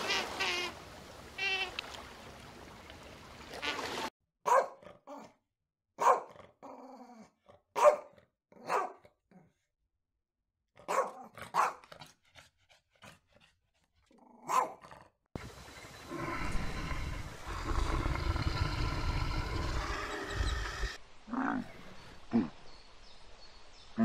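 A Doberman barking, single sharp barks a second or two apart, after a few high squeaky calls at the start. Later comes about five seconds of steady rough noise, then a few short low calls.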